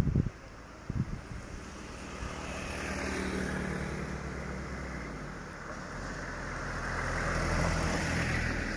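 A car approaching and passing close along an asphalt road. Its tyre noise and steady engine hum swell to the loudest point about eight seconds in.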